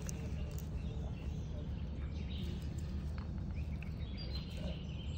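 Outdoor background: a steady low rumble with faint bird chirps, and a few light clicks from the seal housing being handled.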